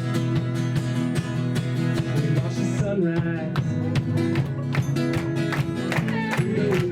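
A band playing a song with strummed acoustic guitar, in a steady rhythm.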